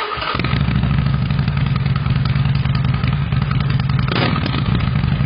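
Motorcycle engine running at a steady, even pitch with a low throbbing pulse. It cuts in abruptly about half a second in.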